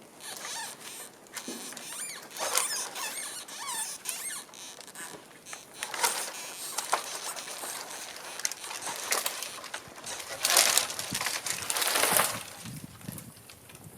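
A partly sawn tree creaking and squealing as it is pushed over, with irregular cracking of wood and a louder crash of snapping wood near the end as it hangs up in a dead tree and breaks that tree's top off.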